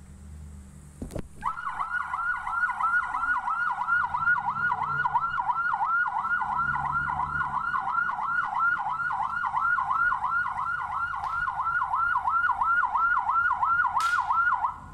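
Police car siren in a fast yelp, sweeping up and down about three times a second. It starts about a second and a half in, just after a sharp click, and cuts off suddenly near the end.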